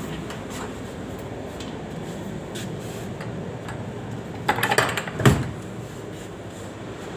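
Steady room hum, broken about four and a half seconds in by a brief rattle of clicks and then one sharp knock, the loudest sound.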